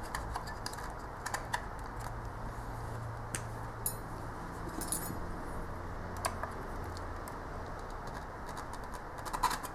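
Scattered light clicks and scrapes of plastic and metal as a Seagate 3 TB hard drive is worked out of its plastic Backup Plus external enclosure by hand, over a low steady hum.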